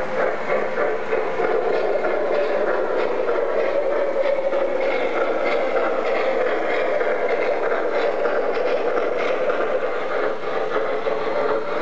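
MTH RailKing O-gauge model train running past on three-rail track: a steady hum with a stream of small clicks from the wheels on the rails.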